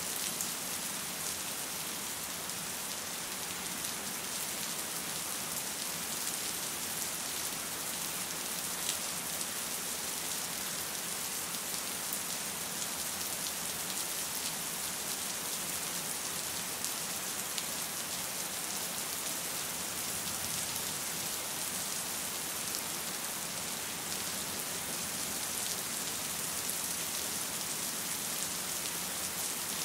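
Steady rain falling: an even, unbroken hiss with fine patter of drops, holding at the same level throughout.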